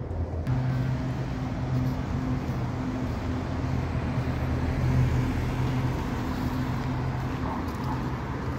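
Steady parking-lot vehicle noise: a constant rush with a low engine hum underneath.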